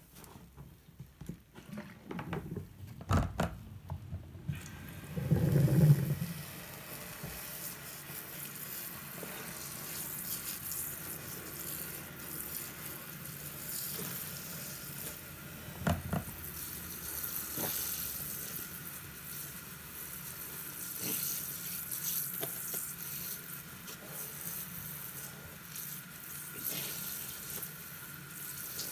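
Soapy foam sponge squelching and crackling as hands squeeze it, then a tap running steadily onto it in a sink from about four seconds in, with a brief low thump near the start of the flow.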